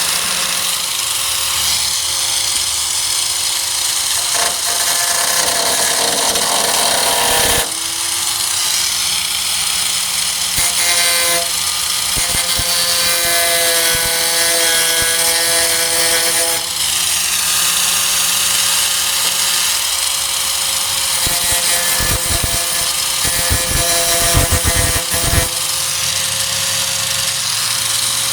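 4-1/2 in. electric angle grinder running continuously against the Ford Ranger tailgate's steel, grinding away paint and rust. It makes a steady motor whine under a harsh grinding hiss, and the pitch shifts a couple of times as the disc is pressed in and eased off.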